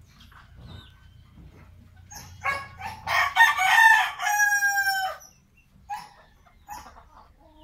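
A rooster crows once, starting about two and a half seconds in: a loud crow of about three seconds that ends on a long held note, falling slightly in pitch.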